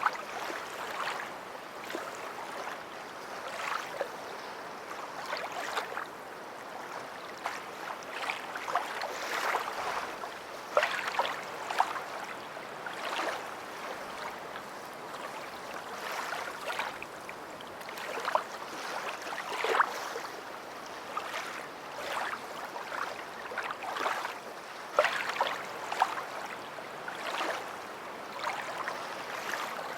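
Small waves lapping and splashing at the shoreline: a steady wash of water broken by frequent irregular splashes.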